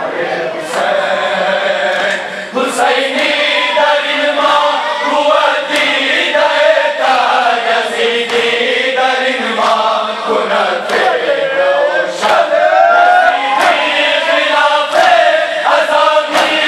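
A large group of men chanting a noha (Muharram lament) together, with sharp strikes of hand-on-chest matam about once a second.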